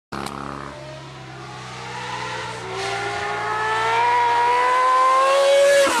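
Honda CBX 1000's air-cooled inline-six engine approaching under acceleration, growing steadily louder as its pitch climbs, then dropping sharply in pitch as the bike passes at the end.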